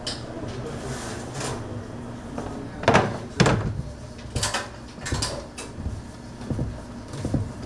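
Knocks and clatters of baking equipment being handled in a bakery kitchen, about seven sharp strikes in the second half, over a steady low machine hum.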